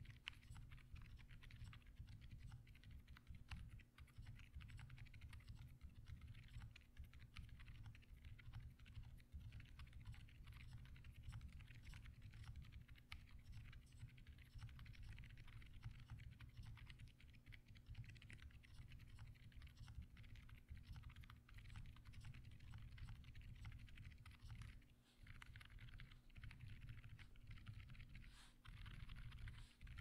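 Continuous typing on a mechanical keyboard with stock Akko Penguin silent tactile switches: faint, muffled key presses, with a couple of short pauses near the end.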